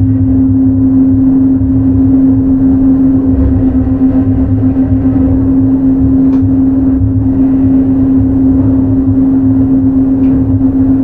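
Interior running sound of a Yui Rail 1000-series straddle monorail car with a Hitachi IGBT inverter: a steady low rumble from the rubber-tyred bogies on the guideway, with a constant hum that holds one pitch.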